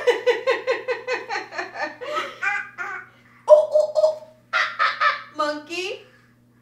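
A voice laughing in a fast run of pitched pulses, about six a second, for some three seconds. A few shorter pitched calls follow, the last one rising near the end.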